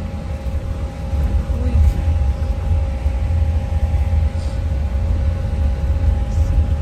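Steady low rumble of a moving vehicle heard from inside its cabin, with a faint steady hum over it.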